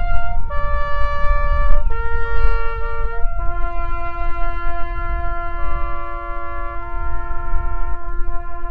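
A brass quintet plays slow, sustained chords. The chords change every half second or so in the first three seconds; after that a low note is held while the upper parts move. A low rumble of wind on the microphone runs underneath.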